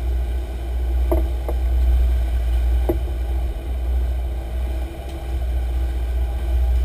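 Sportfishing boat running under way: a steady deep rumble from the engines and the moving boat, with a faint steady hum. A few light clicks come about one and three seconds in.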